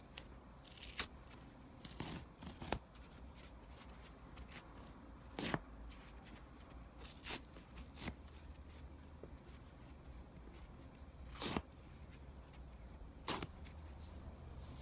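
Foam mattress foam torn apart by hand: about a dozen short, irregular rips, the loudest a second in, and near the middle and end.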